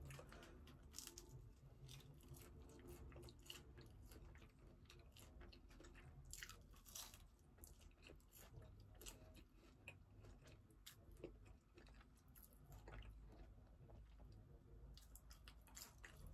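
Faint chewing of fries close to the microphone, with irregular small crunches and mouth clicks.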